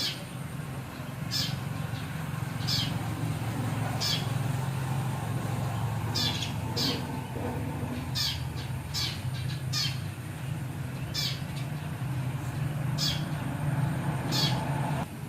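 Short, high-pitched animal chirps, about a dozen at irregular intervals, over a steady low hum.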